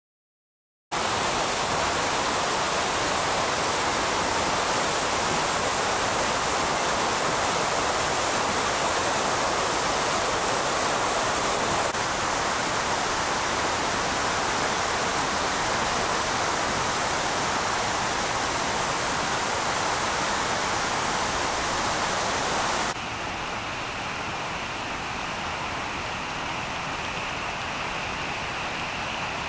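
Steady roar of a flash-flooding river's rushing water, starting about a second in. It drops in level and changes tone about two-thirds of the way through.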